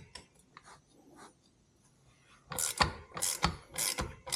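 Hand-tool work on a motorcycle clutch: a few light metallic clicks, then about four rasping, ratchet-like strokes roughly half a second apart in the second half.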